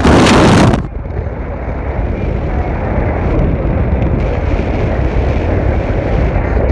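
Steady low rumble of a car heard from inside the cabin, after a loud burst of noise in the first second.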